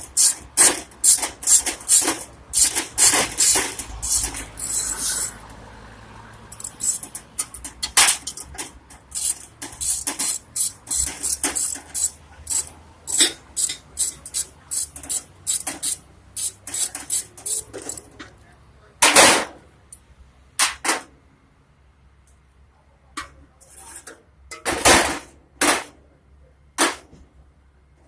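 A rapid, irregular run of sharp metal strikes, two to three a second, from hammering on the steel of a jerk pan under construction. After about eighteen seconds they thin out to a few scattered, slightly longer hits.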